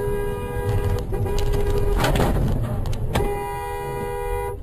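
Car horn sounding a steady two-tone note in long blasts: one of about a second, a shorter one right after, and a longer one near the end. A brief rushing noise fills the gap between them.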